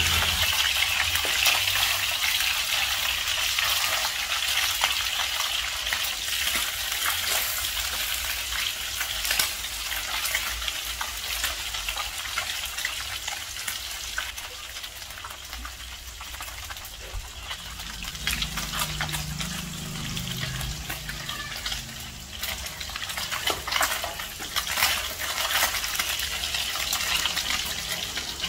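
Fish steaks frying in hot oil in a pan: a steady sizzle and crackle, with the clack and scrape of a spatula turning and lifting the pieces now and then, more of it near the end.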